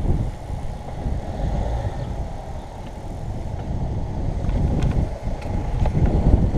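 Wind buffeting a helmet-mounted camera's microphone while a mountain bike rolls along a tarmac road. The wind noise eases in the middle and builds again near the end, with a few faint ticks in the second half.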